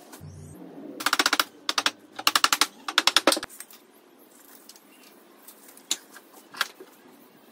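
Steel tape measure blade being pulled out in four quick pulls, each a fast run of rattling clicks, then a couple of single sharp knocks.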